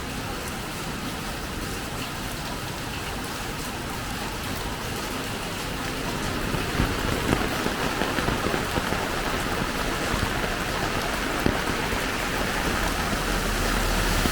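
Heavy rain falling steadily, a dense even hiss that grows slightly louder, with scattered sharper drop hits in the second half.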